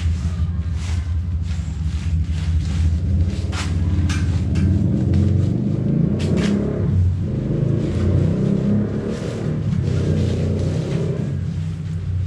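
A loud, steady low rumble, with short rustles of the tent's polyester fly being pulled and shifted over the frame.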